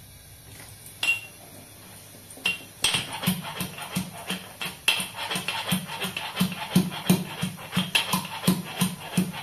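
Metal pestle pounding garlic in a small metal mortar: a couple of single knocks, then from about three seconds in a steady run of sharp strikes, about three a second, each with a short metallic ring.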